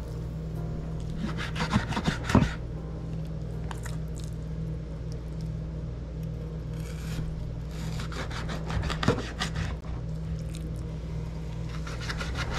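A dull kitchen knife scraping and sawing at red snapper fillets on a cutting board, in several short bursts of strokes, over a steady low hum.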